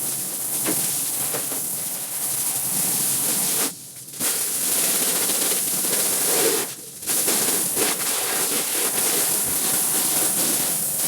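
Water spray hissing steadily onto a rug during wet cleaning, cutting out briefly twice as the spray is stopped and restarted.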